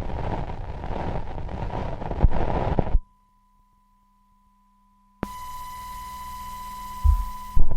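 A steady high electronic tone, like a test beep, over hiss. The hiss cuts out abruptly about three seconds in, leaving only the faint tone, and returns about two seconds later with the tone louder. A thump and a sharp click come near the end.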